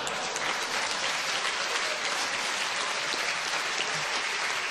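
Live audience applauding, a steady sustained clapping.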